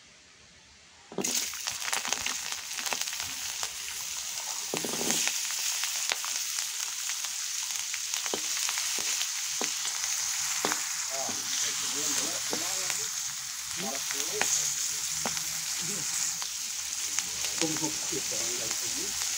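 Chilies, tomatoes, shallots and garlic hit hot oil in a steel wok about a second in, setting off a loud sizzle. The frying goes on steadily, with clicks and scrapes as a spatula stirs them.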